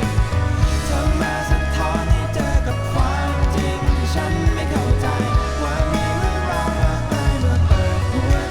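Rock song played from a vinyl record: a full band with a heavy, steady bass line, regular drum hits and sustained guitar parts.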